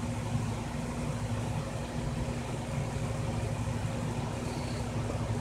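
Steady low room hum with a constant low tone under it, unchanging throughout.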